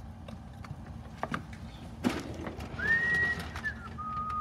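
Rummaging through a drawer: a few knocks and a louder clunk about two seconds in, then two steady whistle-like tones, the first higher and the second lower.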